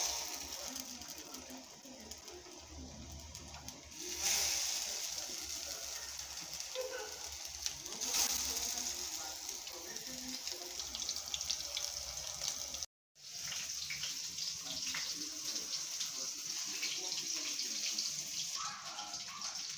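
Burger patties sizzling and crackling in hot oil in a frying pan, a steady hiss with fine pops, growing louder in steps about four and eight seconds in. The sound cuts out for a moment about two-thirds of the way through, then the sizzle carries on.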